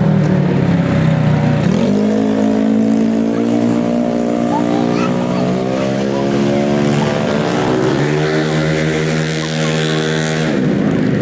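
Racing 150cc automatic scooter engines at high revs, more than one engine note at once. The pitch climbs about two seconds in, holds high, drops around eight seconds in and climbs again near the end.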